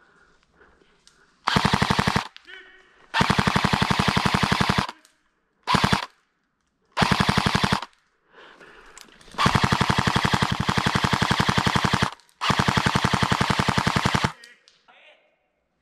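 Airsoft rifle firing on full auto in six rapid bursts, the longest nearly three seconds, with short pauses between them.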